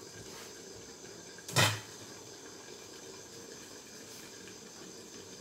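Steady low hiss of a covered pan cooking over a lit gas burner, with one sharp knock about a second and a half in.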